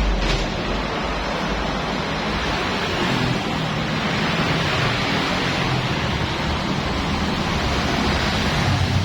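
Petrol-engine pressure washer running, with a steady hiss of its water jet spraying.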